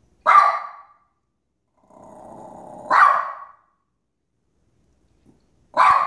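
Small dog barking three times, evenly spaced about every three seconds, with a low growl building for about a second into the second bark.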